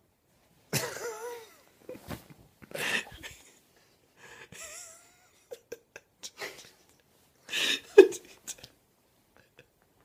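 A person's short, breathy vocal outbursts, about five of them, some with a squeaky wavering pitch; the loudest comes near the end.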